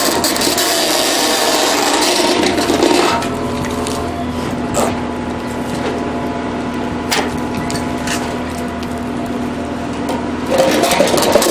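Hydraulic square pile breaker crushing a concrete pile head: a grinding, scraping crunch for about three seconds, then a steady hydraulic hum broken by a few sharp cracks of concrete.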